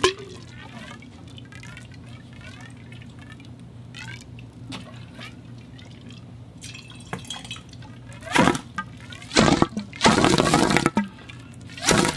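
Water running through a conduit pipe: small drips and gurgles for several seconds, then a series of loud gushes of water from about eight seconds in.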